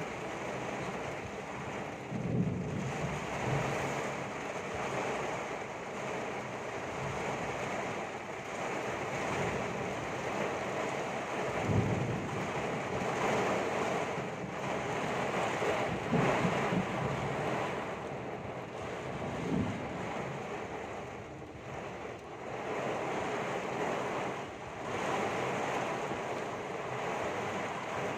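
Typhoon wind blowing in strong gusts over a steady rushing noise, with several low thumps where gusts buffet the microphone.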